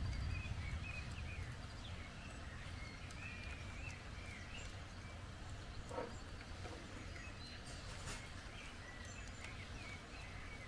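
Thunder rumbling and dying away over the first couple of seconds. After it comes a faint, steady low background with small birds chirping now and then.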